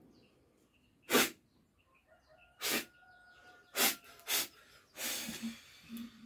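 A healer forcefully blowing mouthfuls of liquid out as a spray during a ritual cleansing. Each blast is a sharp hissing burst: four short ones about a second apart, then a longer spray near the end.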